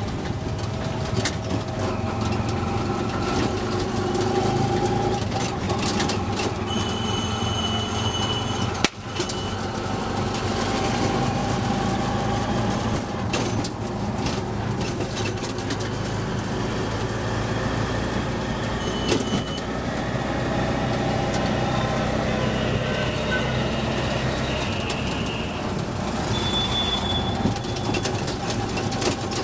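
Auto rickshaw's small engine running steadily under way through street traffic, with horns from the surrounding traffic sounding now and then, the longest a second or so about seven seconds in. A single sharp knock comes about nine seconds in.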